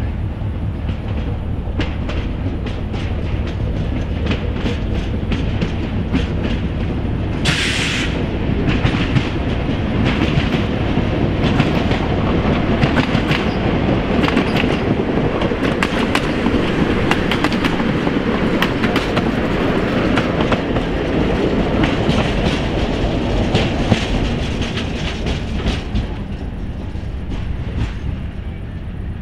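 Train wheels rolling over the track, clicking and clacking steadily over rail joints, with a short hiss about eight seconds in.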